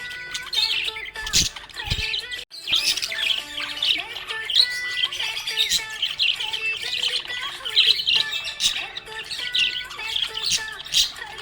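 Budgerigar chirping and chattering in a rapid, continuous stream of high chirps, with background music holding steady notes underneath. The sound breaks off briefly about two and a half seconds in.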